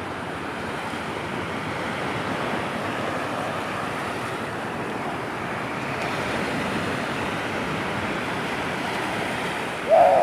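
Sea surf washing on a beach, a steady rushing of waves, with some wind on the microphone. Near the end a short loud cry cuts in.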